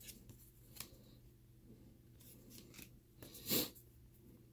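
Paper trading cards sliding and scraping against each other as a stack of baseball cards is flipped through by hand: a few faint scrapes, then one louder swish about three and a half seconds in.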